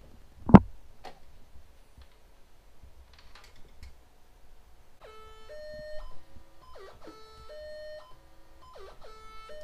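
A thump about half a second in, then from about five seconds in a homemade Synthrotek NAND Synth board built into a Mr Potato Head toy, driven by a step sequencer, plays a repeating pattern of electronic notes, the pitch jumping between a few steps every quarter to half second.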